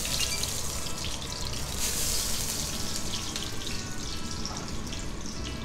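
Hot oil sizzling in a frying pan just after searing a pork tenderloin: a steady hiss that swells briefly about two seconds in.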